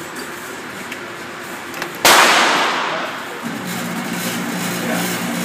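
A single loud gunshot about two seconds in, with a long reverberant decay off the hard walls of an indoor range; a second shot comes right at the end.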